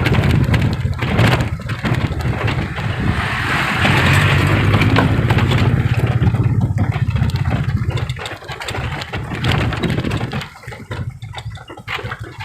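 A motor vehicle's engine running steadily, a loud low rumble with road noise above it. It eases off about eight seconds in and drops further in the last couple of seconds.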